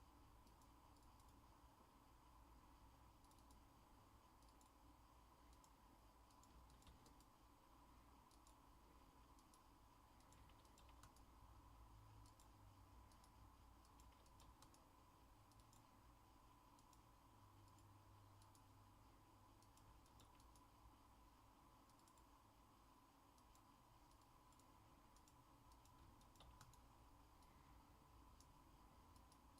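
Near silence: faint room tone with a steady hum and scattered faint clicks.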